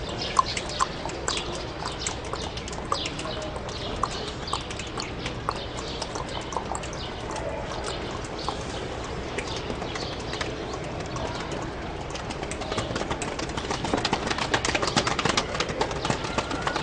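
Birds chirping, with a fast patter of small drops that grows denser over the last few seconds: rain starting to fall.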